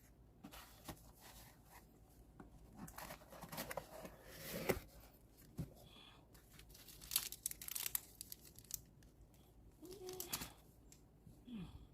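Packaging being torn open and crinkled by hand in several rustling spells with sharp crackles, as a parcel is unboxed.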